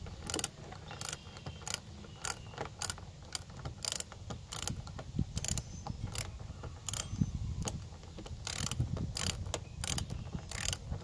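Hand ratchet wrench clicking in short, uneven strokes as it loosens the band clamp on an engine's air intake tube.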